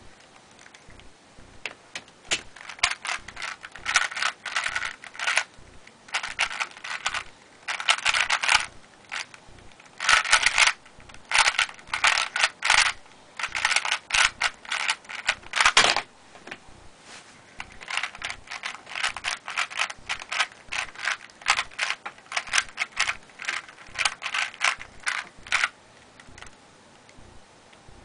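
3x3 Rubik's cube being turned at speed: fast, dense clicking and clacking of the plastic layers, in quick runs of turns with brief pauses. It starts about two seconds in, breaks off briefly around the middle and resumes until near the end.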